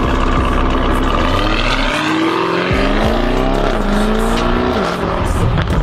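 Lamborghini Urus twin-turbo V8 on a Stage 2 tune with Fi Race downpipes and Fi valvetronic exhaust, accelerating hard. The engine note climbs in pitch, drops at an upshift about halfway, then climbs again and drops near the end.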